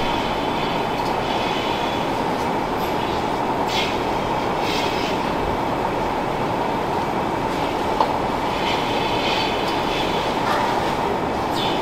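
Milking parlour machinery running: a steady mechanical noise with a faint steady whine, broken by a few short hisses and a sharp click about eight seconds in.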